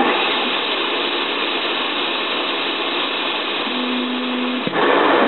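Dental CAD/CAM milling machine running, its spindle milling a PMMA disc: a steady, dense whir. A low hum joins near the end, and after a brief drop about four and a half seconds in the noise comes back louder.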